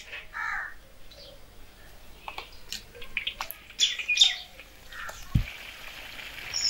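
Small birds chirping intermittently, with scattered light clicks and a low thump about five seconds in.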